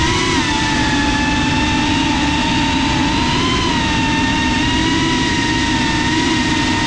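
FPV quadcopter's electric motors and propellers whining at a steady, slightly wavering pitch, heard from the onboard GoPro, with a rush of air beneath.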